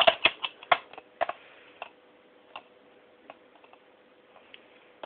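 Hard plastic clicking and rattling from a Nerf Recon stock being handled: a quick run of clicks in the first second or so, then a few single clicks spaced out.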